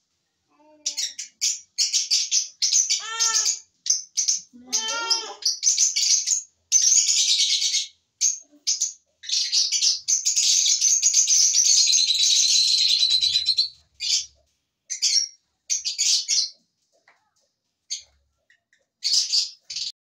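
A flock of lovebirds chattering and chirping in shrill bursts, with one long unbroken stretch of chatter about halfway through.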